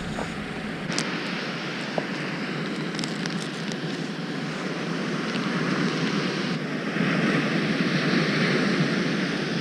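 Waves breaking and washing up a sandy beach, with wind on the microphone, getting louder about seven seconds in. A few faint clicks from fishing tackle being handled early on.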